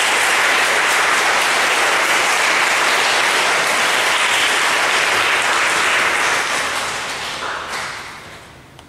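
Audience clapping in steady applause, dying away near the end.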